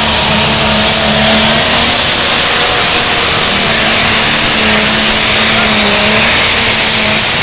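Pulling tractor's diesel engine running flat out under full load as it drags a weighted sled, a loud steady drone with no let-up.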